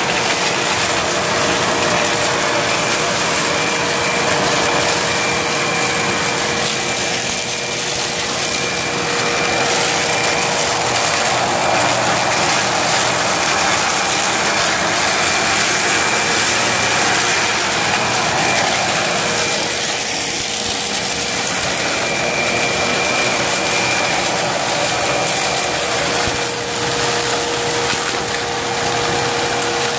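Vacuum cleaner running steadily, its motor giving a constant whine over a loud rush of air.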